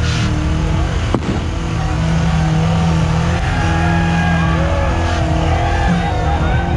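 Rock crawler's engine running hard under load as it climbs a boulder section, a steady deep engine note with a sharp crack about a second in. Crowd voices are heard over it.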